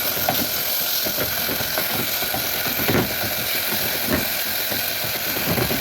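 Food frying in oil in a pan: a steady sizzle, with a few short knocks.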